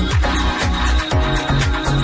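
Electronic dance music with a steady thumping kick-drum beat, about two beats a second, over sustained synth tones.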